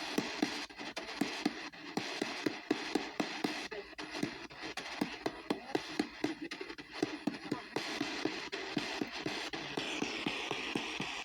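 P-SB7T spirit box sweeping the AM band at a 250 ms rate: a rapid, even ticking of about four clicks a second as it jumps between stations, over static hiss with chopped fragments of broadcast voices. The hiss grows brighter near the end.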